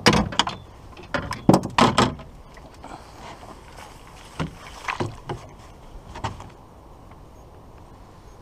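Irregular knocks and bumps against a small boat as fishing gear is handled, several in quick succession in the first two seconds and a few more later.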